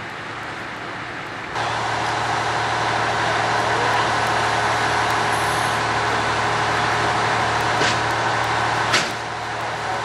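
Fire engine running steadily at a fire scene: a low hum under a broad rushing noise that steps up in level about a second and a half in. Two sharp knocks near the end, the second louder.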